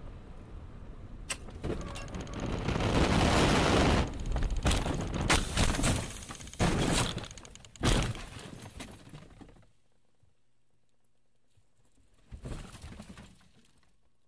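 Ford SUV rolling over in a crash test, heard from inside the cabin: a sharp knock about a second in, then a long loud rush of scraping, then a string of heavy crashes as the body slams the ground, with glass breaking. The noise dies away after about ten seconds, with a brief rattle of settling debris near the end.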